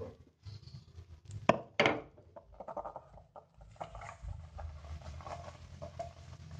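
A few sharp knocks of a frying pan and wooden spatula about a second and a half in, then the steady hiss of a gas stove burner flame with no pan on it.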